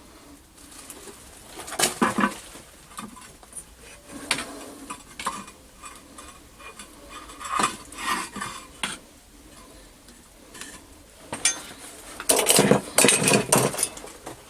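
Metal clanking and clinking in several short bursts, with the densest, loudest run near the end.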